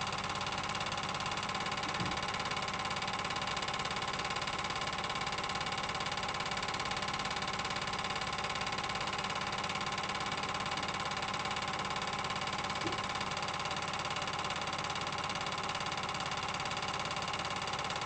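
A steady mechanical hum with hiss, holding many fixed pitches and never changing in level.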